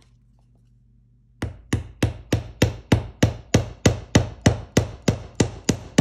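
Hammer striking the end of a heavy wire laid on a round metal bench block: a steady run of sharp blows, about three a second, each with a brief ring, starting about a second and a half in. The wire end is being flattened to form part of a handmade buckle.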